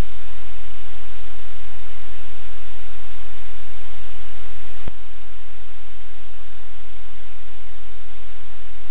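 Loud, steady static hiss over a low electrical hum: noise from a live camera's audio feed. A single click comes about five seconds in, and the noise is slightly quieter after it.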